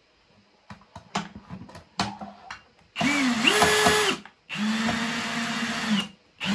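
Cordless drill running in two short bursts of about a second each, the first speeding up partway through, after a few light clicks and knocks of handling.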